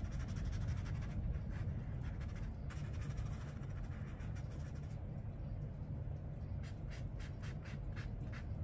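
Watercolour brush stroking and dabbing across paper, a soft repeated scratching. The strokes come at about three a second near the end, over a low steady hum.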